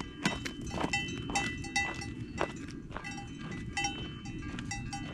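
Cowbells on grazing cattle clanking irregularly, a few clanks a second, each ringing briefly, over a steady low background noise.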